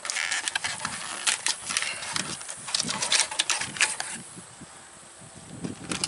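Stiff plastic retail packaging being cut and pried open by hand: a dense run of sharp crackles and clicks that stops about four seconds in.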